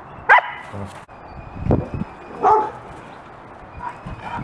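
Dogs at play giving two short barks or yips, one about a third of a second in and one about two and a half seconds in, with dull thumps between.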